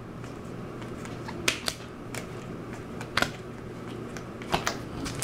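Scattered light clicks and ticks of trading cards being handled, over a faint steady low hum.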